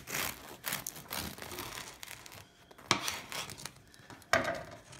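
A knife sawing through the crust of a sourdough boule: rasping, crackling back-and-forth strokes, with two sharper, louder strokes about three and four seconds in.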